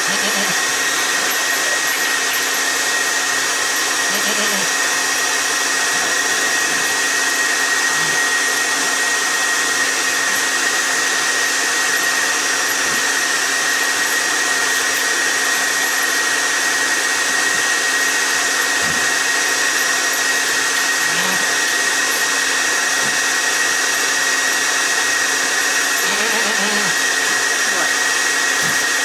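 A motor-driven blower running steadily, a constant whooshing noise with an even high whine through it.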